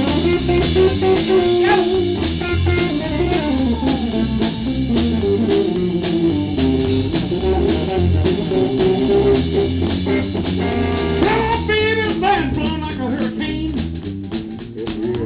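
Electric guitar and drum kit playing an up-tempo blues number live.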